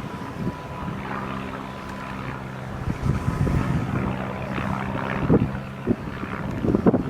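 A steady, low engine drone, such as a distant light aircraft or farm machinery, under gusts of wind buffeting the microphone.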